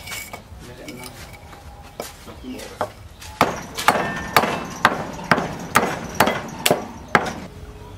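A short hatchet-like hand blade chopping a small block of wood held upright on a wooden plank. A few light chops come first, then from about three seconds in a steady run of sharper chops, about two a second, which stops shortly before the end.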